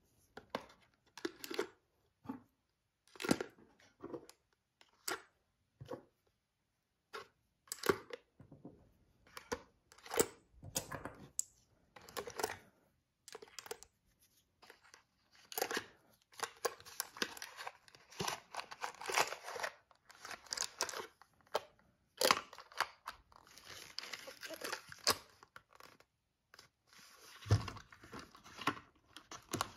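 Brass .223 Remington cartridges clicking into a cardboard ammunition box tray, about one a second, then the cardboard tray scraping and rustling as it is slid into its box sleeve, with a low thump near the end as the box is closed.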